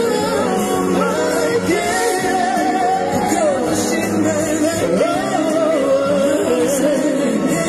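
A male singer's voice sings a pop song live into a handheld microphone over the accompanying music, amplified through the concert's speakers. He holds one note about three seconds in, then lets it fall.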